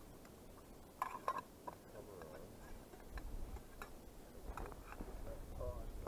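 Scattered sharp clicks and light knocks from a small twig stove and metal cooking gear, with a fry pan of sausages on the fire. Two louder clicks come a little after a second in. A low wind rumble runs underneath.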